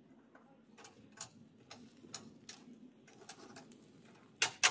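Metal barbecue tongs clicking and tapping on the grate of a small charcoal grill as meat is turned: light irregular ticks, then two sharper clicks near the end.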